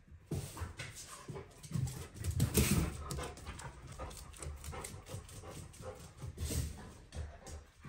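A Dalmatian moving about on a hard wooden floor as it searches: paws and claws tapping and thudding irregularly, louder twice as it runs close, with panting.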